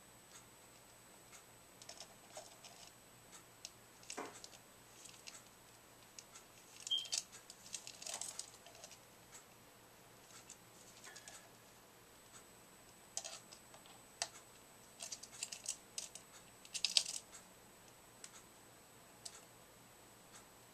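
Parrotlet moving about a wire cage: faint, scattered clicks and short scratchy rustles of claws and beak on the bars and toys, in two busier spells.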